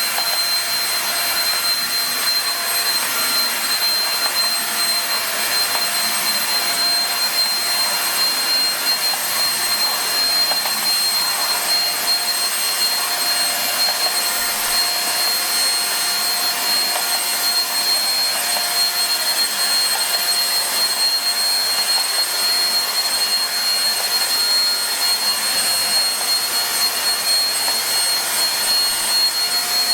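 Starwind SCH1012 vacuum cleaner running steadily: a continuous rushing motor noise with a thin high whine on top.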